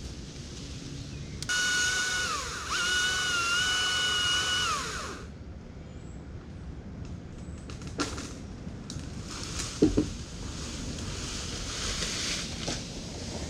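Chainsaw cutting through a limb: a high steady whine that dips once under load and winds down as the saw is released. A few seconds later come a few knocks and a heavy double thump, the cut piece landing or swinging against the tree.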